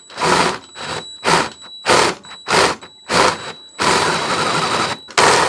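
Cordless drill cutting a half-inch high-speed-steel bit through thick steel bar stock, run in short bursts about every two-thirds of a second while the speed is being controlled, then a longer steady run near the end.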